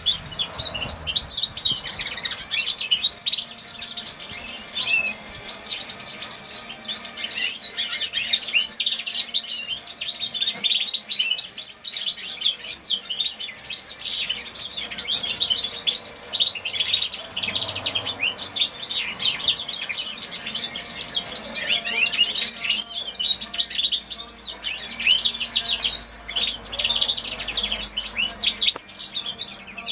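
Young hybrid finch sired by a grey singing finch (Crithagra leucopygia), singing a long continuous song of rapid, high chirps and twittering trills, with a couple of brief lulls.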